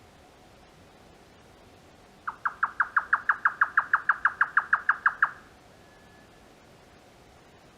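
Grey nightjar giving its typical 'kyo-kyo-kyo' cucumber-chopping call. It is a fast, even run of about eighteen sharp notes, some six a second, lasting about three seconds and starting a couple of seconds in.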